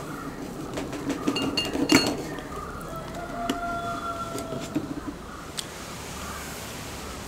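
Chef's knife cutting a lemon in half on a stainless steel tray: quiet knocks and clicks of the blade and fruit against the metal, the sharpest about two seconds in. A faint steady tone sounds for about a second a little past the middle.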